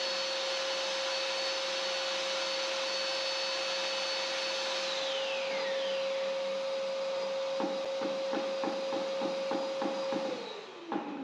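Handheld electric paddle mixer running steadily in a bucket of self-leveling floor compound. About two-thirds through, regular knocks come about four a second. Near the end the motor is switched off and its whine falls away.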